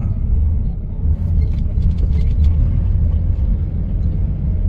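Low, steady rumble of a vehicle rolling slowly across a parking lot, engine and tyre noise heard from inside the cabin, with a few faint ticks.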